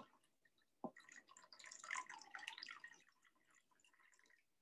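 Vinegar poured into a measuring cup: a small knock about a second in, then about two seconds of faint trickling and splashing that stops.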